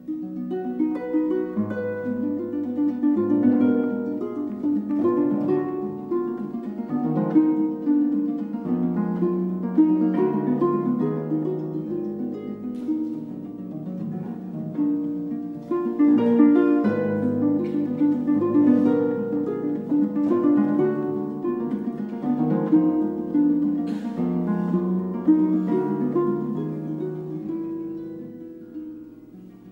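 Concert pedal harp played solo: a flowing stream of plucked notes over low bass notes, getting quieter near the end.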